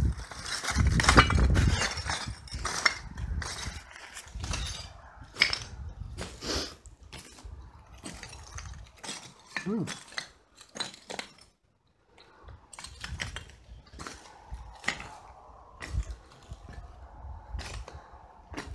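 Footsteps crunching over broken roof tiles and rubble, with irregular clinks and cracks of shards shifting underfoot and a low rumble about a second in.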